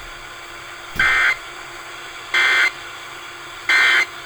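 Emergency Alert System end-of-message burst broadcast over FM radio: three short bursts of warbling two-tone data, sent about a second and a half apart, marking the end of the alert.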